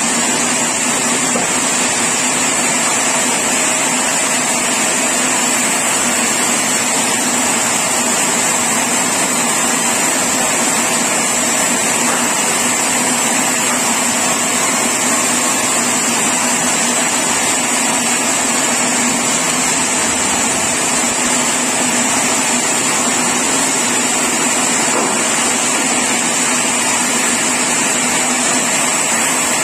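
Sawmill machinery running continuously at a constant loud level, a steady high whine over a low hum with no let-up or knocks.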